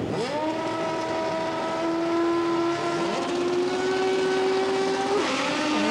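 Drag racing motorcycle engines revved up on the starting line, rising quickly and then held at a steady high pitch. The pitch dips briefly about five seconds in.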